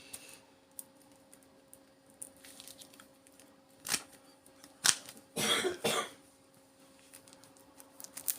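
Scattered small clicks and two sharp knocks of a power-adapter transformer being picked apart by hand for its copper winding, with a short harsh burst a little past the middle, over a faint steady hum.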